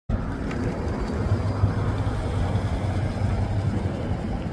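Engine of a mid-1950s Chevrolet Nomad wagon running steadily and low-pitched as the car pulls out and drives off.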